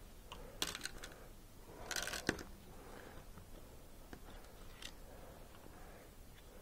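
Gloved hands handling plastic maple sap tubing and a hand tool: a few sharp clicks just over half a second in, then a short rustle ending in a sharp click about two seconds in, and a few light ticks after.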